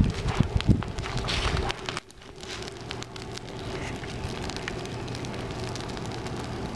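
Open fire crackling with many small sharp pops. A low rumble sits under it for the first two seconds, then the crackle runs on more quietly and evenly.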